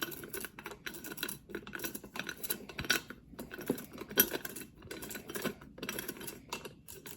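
Irregular metallic clicks and rattles of a new vending-machine lock and its key being fitted and turned, left loose rather than tightened. One sharper click comes about four seconds in.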